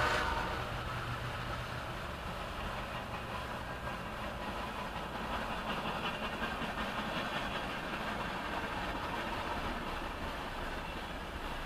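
Freight train's tank cars rolling past at steady speed: a continuous noise of steel wheels on the rails with a faint rhythmic clatter, heard from inside a parked car.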